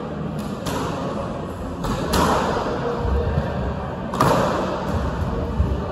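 Squash rally: a few sharp, irregular smacks of the racket striking the ball and the ball hitting the court walls, each with a short echo in the court, loudest about two and four seconds in.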